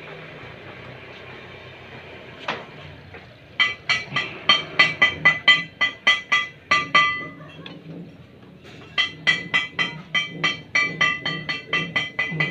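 Wet sponge squeaking against a motorcycle's front wheel in quick back-and-forth scrubbing strokes, about four or five squeaks a second. The squeaks start a few seconds in, pause briefly past the middle, then start again.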